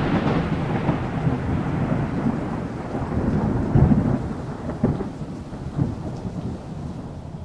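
Thunder rolling and slowly dying away over steady rain, with a couple of swells in the rumble about four and five seconds in, fading out toward the end.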